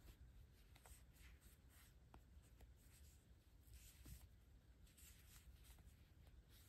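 Faint, irregular scratchy rustling with a few small ticks, from a metal crochet hook pulling sport-weight yarn through stitches.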